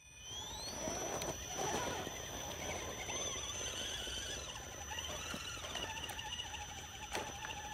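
Electric motors and gear drives of Axial Bomber RR10 radio-controlled rock crawlers whining as they crawl up a steep dirt bank. The whine rises in pitch during the first second, then carries on with a steady high tone, a wavering pitch and occasional clicks.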